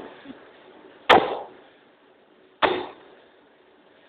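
A 40cwt Massey forging hammer striking a red-hot solid stainless steel ring of about 150 kg: two heavy blows about a second and a half apart, each with a short ringing tail.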